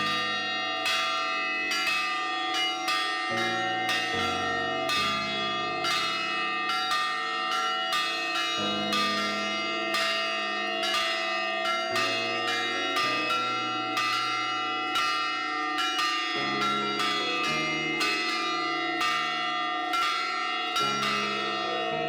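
A set of church bells of different pitches ringing in a quick, even sequence, about two to three strikes a second, each stroke ringing on under the next.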